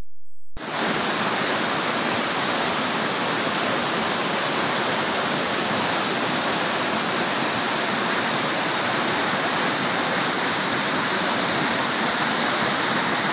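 Water rushing over a concrete dam spillway, a steady, loud rush of churning whitewater that starts about half a second in.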